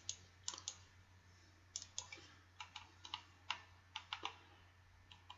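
Faint typing on a computer keyboard: irregular sharp key clicks, some in quick pairs, over a low steady hum.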